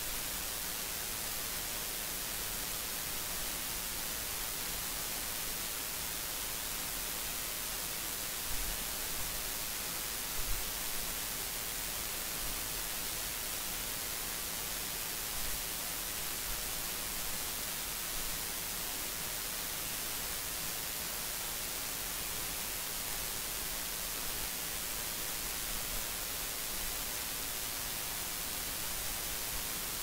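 Steady static hiss, strongest in the high frequencies, with a few faint short low thumps about a third of the way through.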